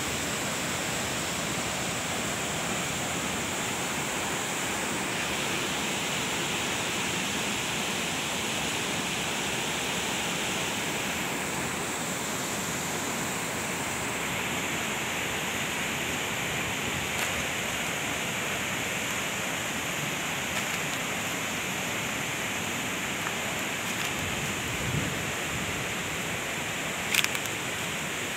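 Steady rush of flowing water, an even hiss that stays level throughout, with a brief sharp click near the end.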